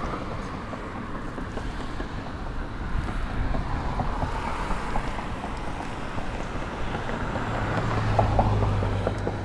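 Wind buffeting the microphone outdoors, a steady noisy rush, with a low hum that swells near the end and a few faint light taps.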